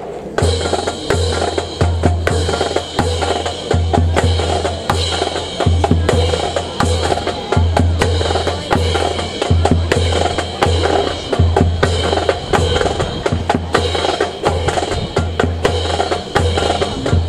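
Music with a steady drum beat and a pulsing low bass note, with many sharp percussive hits.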